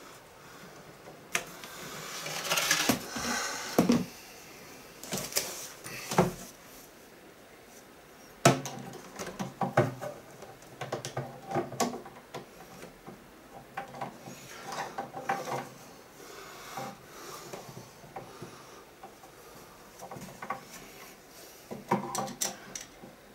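Handling and assembly noise on a wooden cabinet: scattered knocks and clicks of wooden panels and a hand tool, with a longer scraping rub about two to four seconds in.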